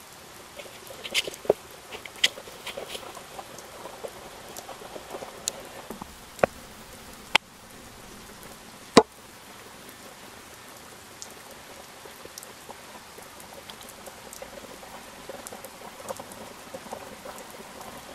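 Small metal hand trowel digging in loose potting soil, the soil crumbling and pattering, with a few sharp clicks and taps scattered through, the loudest about nine seconds in.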